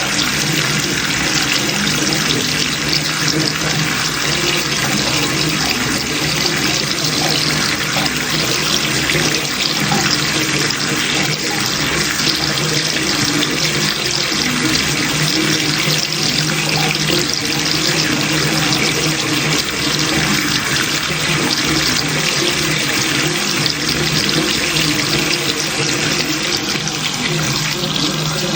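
Bathroom water running steadily, a continuous pouring and splashing with no pauses.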